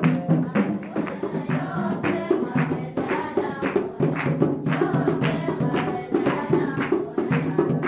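Festive party music: hand drums and tambourine keep a steady beat under singing.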